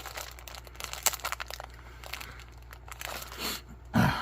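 Crinkling and crackling of ration food packaging being handled, many small scattered crackles, with one short low thump near the end.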